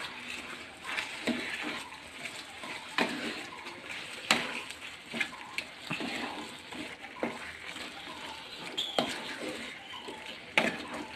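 Wooden spatula stirring and turning chicken pieces in thick, wet masala in a kadai, with irregular scrapes and light knocks against the pan.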